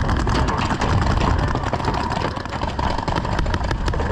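Steady low rumble, with sharp paintball marker shots popping many times throughout.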